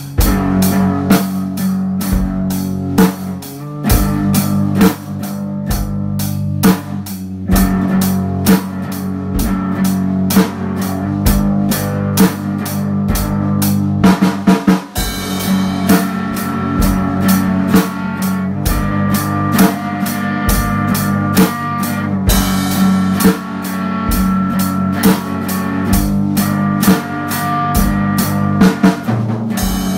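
Instrumental rock backing music with a steady drum-kit beat and guitar, briefly dipping about halfway through before carrying on.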